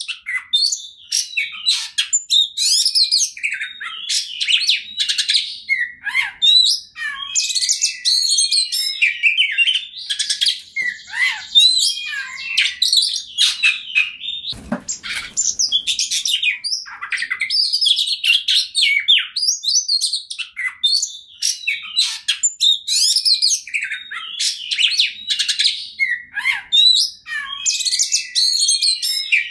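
Oriental magpie-robin singing nonstop: a fast, unbroken stream of varied whistles, chirps and trills. A short low rumble comes near the middle.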